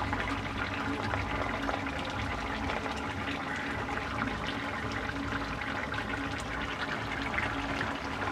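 Chicken and potato curry simmering in a kadai over a gas burner: a steady hiss dotted with many small pops of bubbling gravy.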